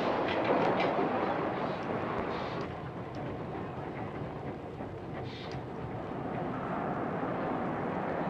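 Glasgow Subway train running on the track, a steady rumble that eases after about two seconds, with a few short high-pitched squeals and clicks.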